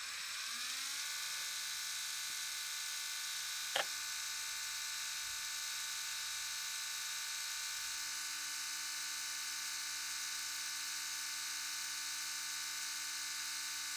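Tekin Gen 2 21.5-turn brushless RC motor being spun by a motor analyzer for a timing test, its endbell set to 30 degrees. It whines up in pitch over about the first second, then runs at a steady speed. There is one short click about four seconds in.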